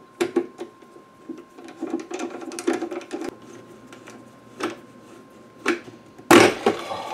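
Hands taking apart a desoldering station's housing: a run of small clicks and rattles as screws are backed out and set down on the bench, a couple of single clicks, then a louder scraping clatter about six seconds in as the cover is pulled loose.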